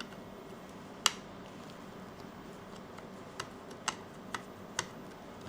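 Small clicks and ticks of a precision screwdriver tip against a tiny screw on a circuit board: one sharper click about a second in, then a few fainter scattered ticks.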